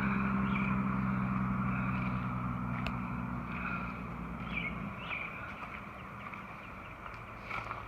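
A motor vehicle's steady engine hum that fades away about five seconds in, with birds chirping repeatedly throughout.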